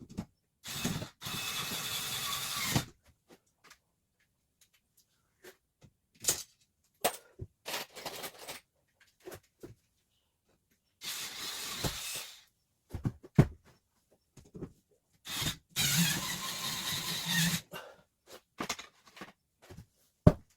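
A power tool run in three short bursts of one to two seconds each, with knocks and clicks of handling between them, during work fitting plywood ceiling panels.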